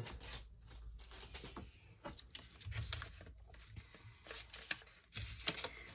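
Faint rustling of paper being handled and sorted, with many small, sharp ticks and crinkles.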